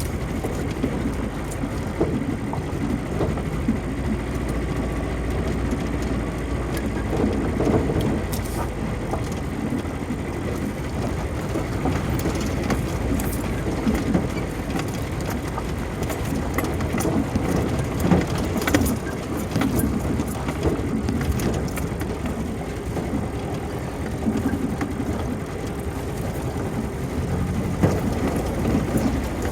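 Vehicle driving off-road over rough ground: steady engine and tyre noise with scattered knocks and rattles.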